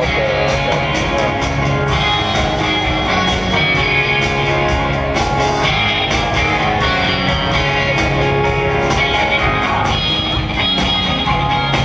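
Live rock band playing, electric guitar to the fore over a steady drum beat.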